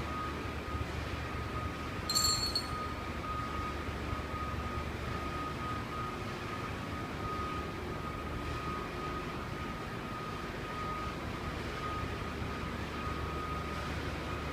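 Steady low rumble of construction machinery running, with a thin steady whine over it and a short metallic clink about two seconds in.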